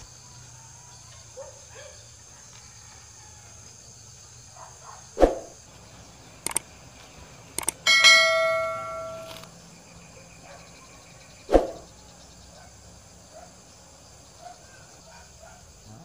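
A metal object struck once, ringing with a bell-like tone that fades over about a second and a half, a little past the middle; two sharp knocks, one before and one after it, and a couple of brief high clicks just before the ring.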